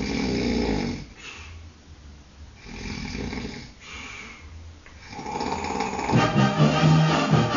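Snoring, four long breaths about a second apart, the first and third the loudest. About six seconds in, banda music with brass comes in loudly and drowns it out.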